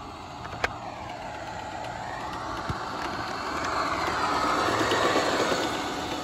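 Toy-grade New Bright Ford Lightning RC truck driving on asphalt: its electric motor and gears whine with the tyres hissing on the road, the pitch dipping and rising again as the speed changes. It grows loudest as the truck passes close, about four to five seconds in, with a single sharp click just under a second in.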